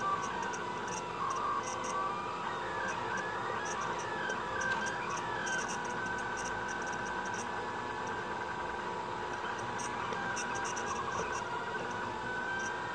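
Delta 3D printer's stepper motors whining as the print head moves, the pitch stepping and gliding up and down with each move, over a steady hum.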